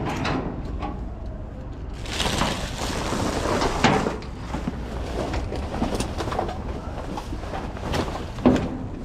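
Rummaging through trash in a dumpster: rustling and crunching of bags and debris with scattered knocks, and one sharp knock near the end.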